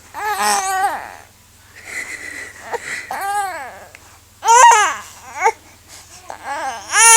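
A baby vocalising in about five short, high-pitched fussy calls, between babbling and whimpering. The loudest comes near the end and leads into crying.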